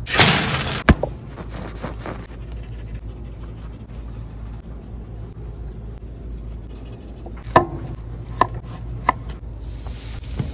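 A steady high insect drone over a low background hum, opened by a short loud burst of noise and broken by a few sharp clicks near the end.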